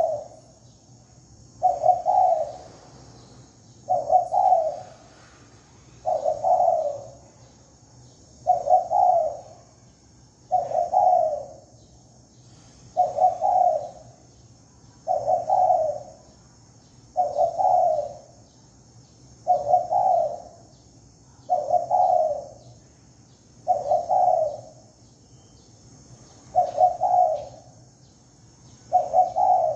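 Spotted dove (cu gáy) decoy bird cooing its 'thổ' call, a short cooing phrase repeated about every two seconds. This is the decoy call used to lure wild doves.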